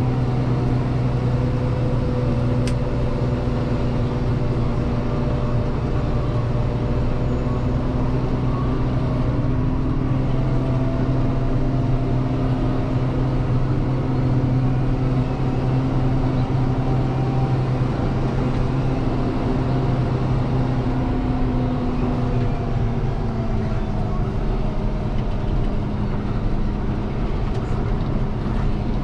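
Deutz-Fahr 6185 TTV tractor's six-cylinder diesel running steadily under way, heard from inside the cab as an even drone. Its pitch drifts slowly and drops a little about three-quarters of the way through.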